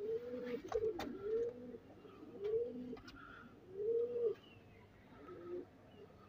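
Domestic pigeon cooing: a run of low, rolling coos about once a second, growing fainter near the end. A sharp click about a second in.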